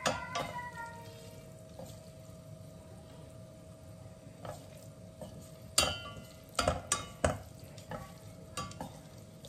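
Wooden chopsticks stirring and tossing instant noodles in a stainless steel pan, clicking and knocking against the metal, the loudest taps ringing briefly; the knocks come in a cluster from a little past halfway. A faint sizzle of the hot pan and a steady faint hum lie underneath.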